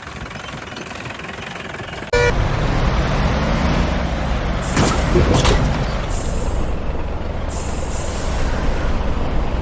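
A heavy vehicle engine sound that cuts in abruptly about two seconds in with a short beep, then runs on with a low rumble, broken by three or four short high hisses.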